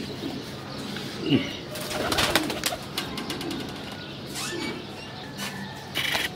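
Domestic pigeons cooing, with a quick flurry of wing flaps about two seconds in and another short flutter near the end.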